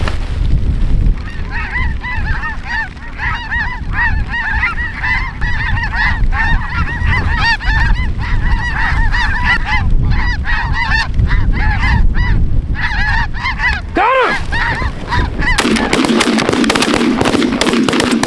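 A large flock of snow geese calling overhead, many high yelping calls overlapping in a constant chatter over a low wind rumble, with one louder drawn-out call near the end. Shortly before the end the calling gives way to a sudden loud rushing noise with rapid clicks.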